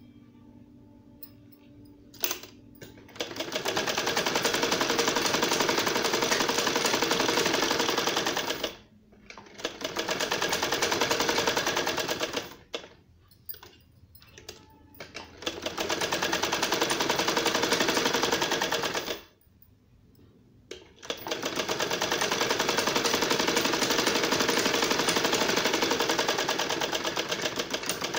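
Domestic sewing machine stitching a seam through layered cloth, its needle mechanism running in a rapid, even clatter. It goes in four runs of several seconds each, with short pauses between as the fabric is repositioned.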